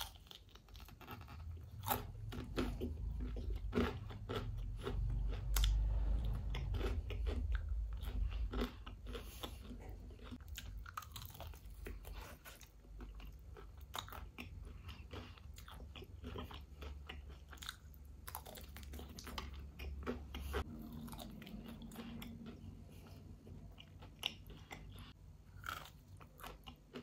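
Close-up eating of crispy KFC fried chicken wings: many sharp crunches as the breaded coating is bitten, with chewing in between. A low rumble runs underneath and stops suddenly about twenty seconds in.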